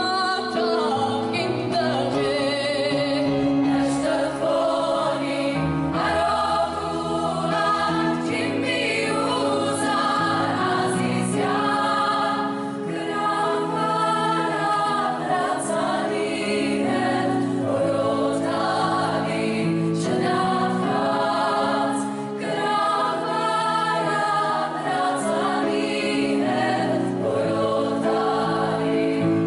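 Choral music: a choir singing slow, sustained lines.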